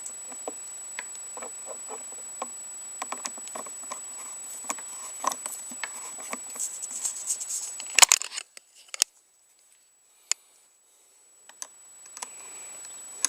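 Small scattered metallic clicks and taps of a T-handle Torx driver working on the clutch lever's pivot screw and locking nut, with a louder clatter about eight seconds in, after which the sound drops almost to nothing for a few seconds apart from a couple of single clicks.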